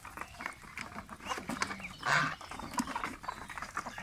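Mixed flock of geese, ducks and chickens feeding from a tray: many quick clicks of bills pecking and dabbling, with a few short bird calls and one louder call about two seconds in.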